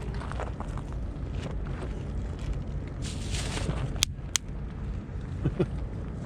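Two sharp firecracker pops about a third of a second apart, a little after a short hiss, over a steady low rumble of wind on the microphone.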